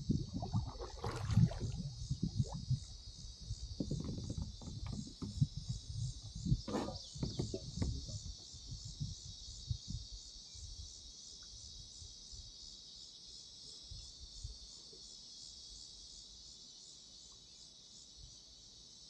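A steady, high, pulsing drone of insects from the riverbank. Over the first several seconds it is joined by irregular paddle splashes and low knocks against the kayak, which fade out about halfway through.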